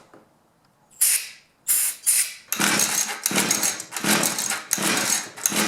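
Three short sprays of starting fluid into the carburettor, then the recoil starter cord of a Mantis mini tiller's two-stroke engine yanked over and over, about twice a second. The engine turns over but does not fire.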